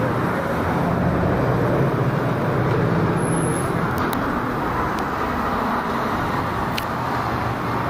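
Road traffic on a city street: vehicles passing in a steady rush of engine and tyre noise, with a low engine hum that fades out a few seconds in.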